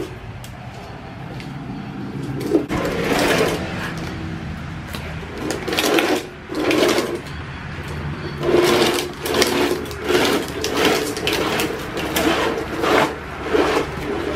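Hard plastic wheels of a toddler's ride-on toy rolling and rattling over rough concrete, coming in repeated bursts about once a second as it is scooted along.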